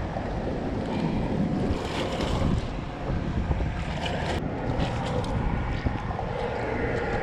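Wind buffeting the microphone over small waves lapping against a rocky shoreline, with brief splashing as a stingray is hauled up out of the shallows about four seconds in.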